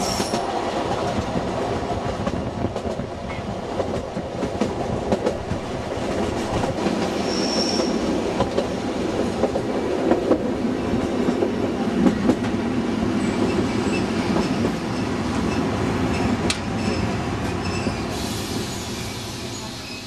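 Narrow-gauge train running, heard from the carriage window: wheels clattering over the rail joints, with a short high squeal about seven seconds in. The sound eases near the end as the train slows into a station.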